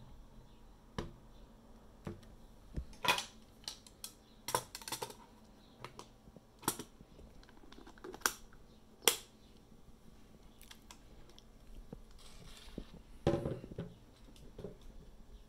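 About a dozen scattered sharp clicks and taps from a Canon DS-8 Super 8 film camera being handled, with a short rustling scuffle near the end.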